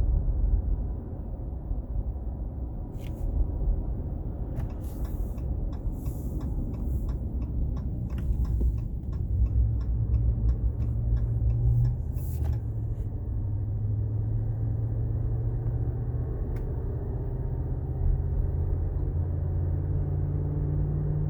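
Inside the cab of a 2019 Ram 1500 pickup while driving: a steady low road and driveline rumble. A run of quick light ticks comes between about four and nine seconds in. A low hum joins about nine seconds in and rises slightly toward the end.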